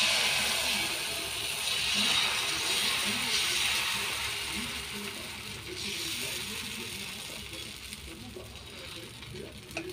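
Dosa batter sizzling on a hot griddle (tawa) as it is poured and spread in a spiral with a ladle, the ladle rasping against the pan. The sizzle starts suddenly, is loudest in the first few seconds, and fades gradually.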